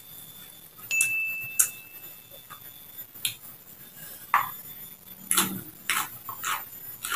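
Sharp little snaps and clicks of raw water spinach (kangkung) stems being broken apart by hand, with a brief steady high beep about a second in. The clicks crowd together near the end into crunchy eating sounds as food goes into the mouth.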